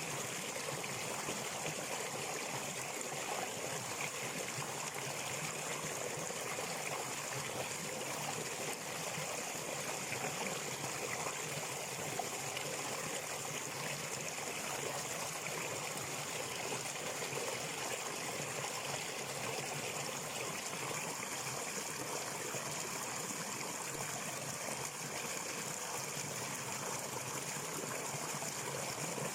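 A stream of water running and trickling steadily.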